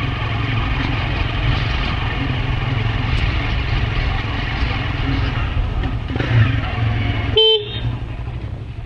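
Steady road traffic noise with a low engine hum, broken about seven and a half seconds in by one short vehicle horn honk.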